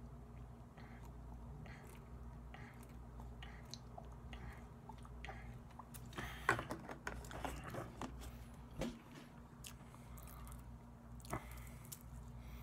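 Close-up mouth sounds of a man drinking from a plastic bottle: faint gulps and wet clicks, then a burst of crackling clicks about halfway through, with a couple of single louder clicks after.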